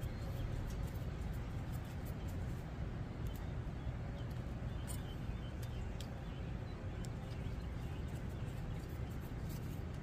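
Steady low outdoor rumble, with faint, scattered clicks of a screwdriver tightening the cover screws on a small-engine carburetor.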